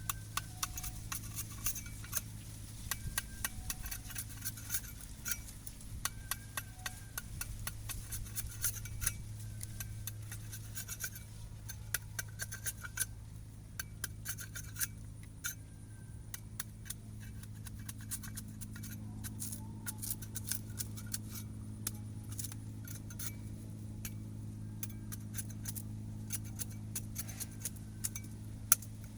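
A knife scraping and cutting a sugarcane stalk in quick, irregular strokes and clicks, over a steady low hum.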